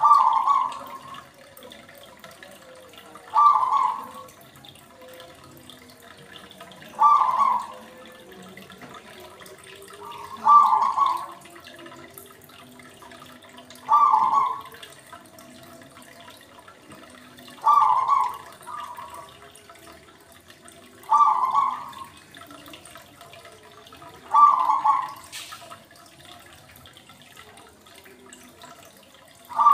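Aquarium water gurgling in short bursts, one about every three and a half seconds, each starting sharply and fading within about a second.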